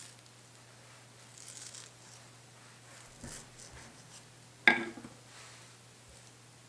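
Kitchen knife scoring the soft flesh of a mango cheek in a few quiet slicing strokes. About three-quarters of the way in, a sharp clack as the knife is set down on a wooden cutting board.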